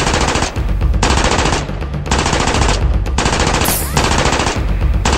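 Dubbed automatic-gunfire sound effects: several bursts of rapid shots about a second long with short gaps between, and a short rising whistle like a ricochet about four seconds in.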